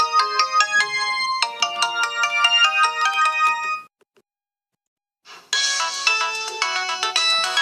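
Polyphonic MIDI ringtones played on a Nokia 112 mobile phone: one tinkling melody stops about four seconds in, and after a second or so of silence another ringtone starts.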